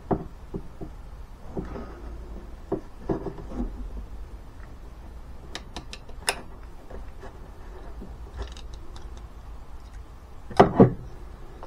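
Hand crimping tool squeezing a connector onto a wire and diode lead: scattered small clicks and handling knocks, then two louder clunks close together near the end.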